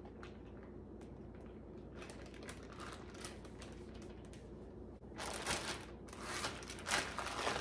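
Plastic zip-top bag crinkling and rustling as it is handled and pressed shut along its zipper. It begins about five seconds in, after a few faint clicks.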